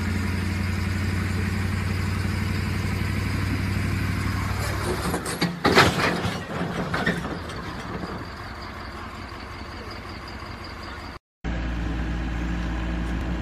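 Heavy machine engine running steadily, then a loud crash with clattering knocks for about a second and a half, about five and a half seconds in. After a quieter stretch it cuts off abruptly and another engine runs steadily.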